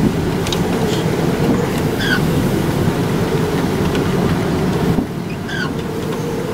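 Strong wind buffeting the microphone: a steady, loud low rumble, with a few faint short high chirps about two seconds in and again near the end.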